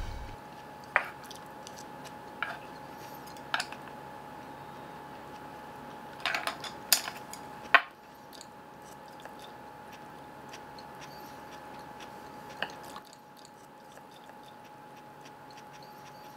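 Chopsticks clicking now and then against ceramic bowls and plates during a quiet meal: a handful of light taps, a small cluster about halfway through, over a faint steady hum.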